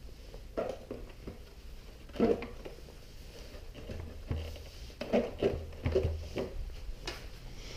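Irregular light knocks, clicks and rustles of gloved hands handling and working loose the plastic tank cover of a KTM Duke 390 motorcycle, with a cluster of knocks in the second half.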